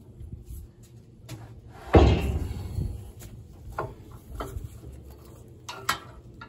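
Heavy steel coil springs on a Vermeer BC1500 woodchipper being put back into place: one loud metal clank about two seconds in, with a short ring, then a few lighter clicks.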